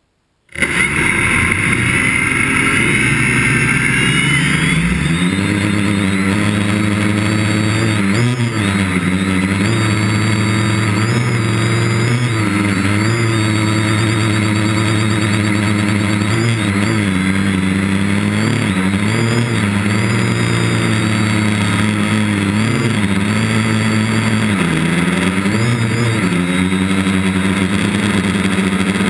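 A GAUI quadcopter's electric motors and propellers spin up suddenly about half a second in, heard close up from a camera on the craft. They rise in pitch a few seconds later as it lifts off, then keep up a loud, steady buzzing hum whose pitch rises and falls with the throttle in flight.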